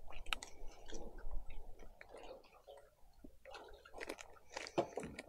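A person chewing and crunching a snack close to the microphone: irregular crisp crunches between quieter chewing.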